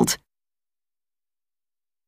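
Complete digital silence, after the narrator's last syllable fades out just at the start.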